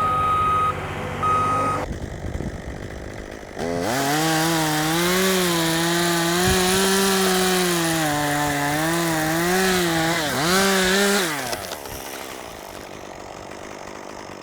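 Two short beeps, then a two-stroke chainsaw revs up about four seconds in and runs at high speed for about eight seconds, its pitch dipping and recovering as it cuts wood, before it drops back off.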